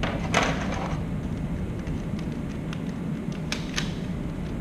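A small magnifying loupe and its packaging being handled: a brief rustle or clatter about half a second in, then a few light clicks. A steady low hum runs underneath.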